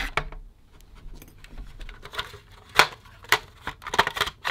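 Hard plastic parts of a 1971 Nintendo Ultra Scope toy periscope clicking and knocking as an internal assembly is worked loose from its casing by hand: a few sharp clicks, the loudest about three seconds in.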